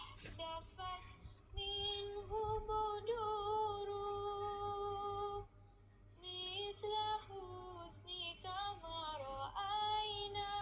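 Background music: a woman singing long held notes, with a short pause about halfway through.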